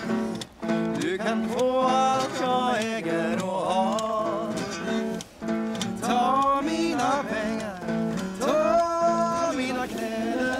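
Acoustic guitar strummed in steady chords, with a voice singing a melody over it.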